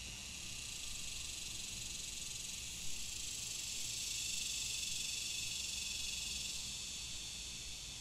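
Chorus of cicadas buzzing steadily and high-pitched, swelling slightly in the middle, over a faint low rumble.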